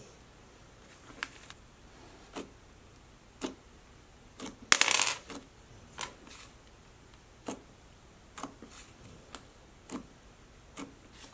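Stiff, putty-like slime being pressed and poked with fingers, giving sharp clicks and pops about once a second, with a louder crackling squish about halfway through.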